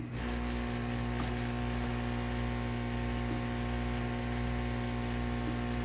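Electric heat gun running, a steady motor-and-fan hum with a layered whine, coming on just after a click at the start.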